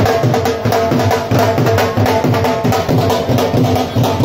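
Two dhols, large double-headed barrel drums beaten with sticks, playing a fast, steady beat of loud strokes.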